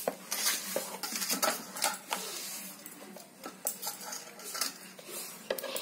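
Steel spoon scraping and clinking against a steel bowl while scooping thick pickle into a jar: a run of irregular light scrapes and clicks.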